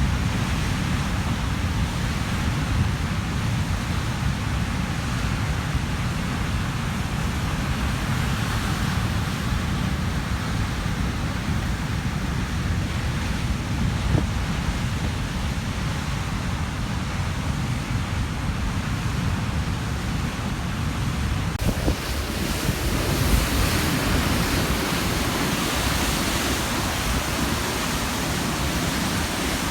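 Large ocean waves crashing and churning on a rocky shore at high tide, a continuous surf wash with a deep rumble and wind buffeting the microphone. About three-quarters of the way through, the hiss of the surf suddenly becomes louder and brighter.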